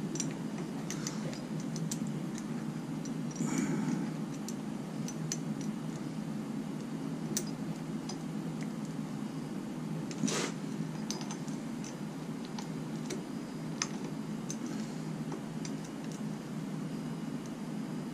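Scattered light metallic clicks and taps as a harmonic balancer puller is fitted and adjusted by hand on a Jeep 4.0 inline-six's crankshaft balancer, with a sharper click about ten seconds in. A steady low hum runs underneath.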